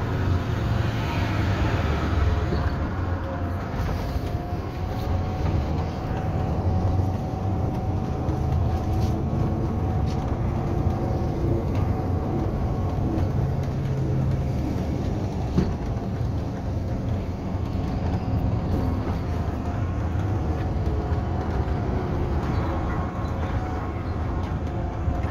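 Interior running noise of a VMZ-5298.01 Avangard trolleybus under way: a steady low rumble with faint humming tones over it, one of them gliding in pitch about twenty seconds in.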